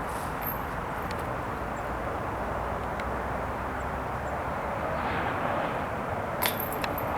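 Steady outdoor background noise, swelling a little about five seconds in, with a few sharp clicks near the end.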